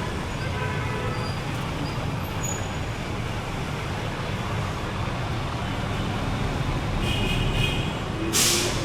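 Steady rumble of passing street traffic, with a short burst of loud hiss near the end.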